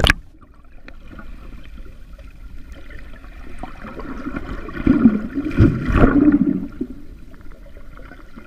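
Shallow sea water sloshing and gurgling as heard underwater, muffled and dull. It grows louder from about four and a half to seven seconds in, then settles back.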